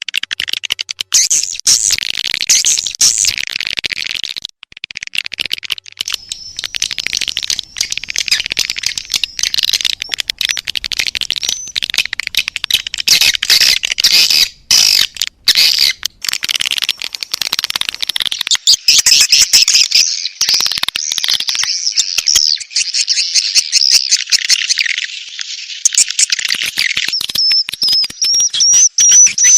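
Swiftlet lure call: dense, rapid twittering and clicking chirps of swiftlets, the 'birahi' (mating) call played to draw swiftlets into a nesting house. A thin, high, wavering whistle comes in near the end.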